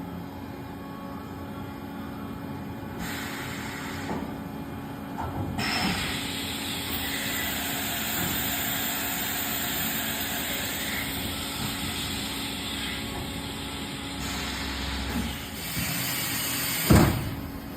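Haas EC-1600YZT horizontal machining center cycling its side-mount automatic tool changer. A long hiss of air runs under the machine's steady running, and near the end the tool-changer door closes with a single loud thud, which the operator thinks could well be normal for a machine this size.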